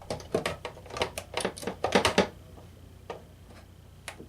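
Quick clicks and knocks of plastic and metal parts as a water ionizer's power board is fitted back into its housing, a dense run for about two seconds, then a few scattered clicks.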